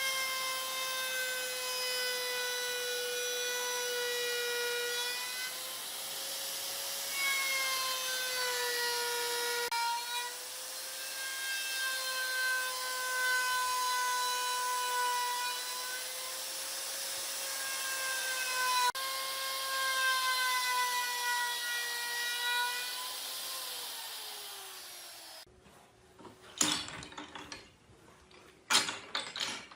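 An electric power tool's motor whines steadily while working wood, its pitch sagging now and then as it bites. About 24 s in it is switched off and winds down, followed by a few sharp knocks.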